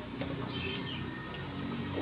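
Music playing in the background, with several held notes sounding together.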